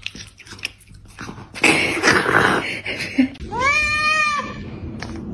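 A cat meowing once, a drawn-out call that rises and then falls in pitch, shortly after a brief burst of noise.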